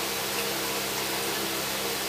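Electric fan running with a steady whir and hiss over a low, even hum.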